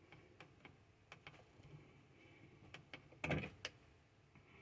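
A quiet pause in a NOAA Weather Radio broadcast: faint receiver hiss with scattered light clicks, and a louder pair of clicks a little over three seconds in.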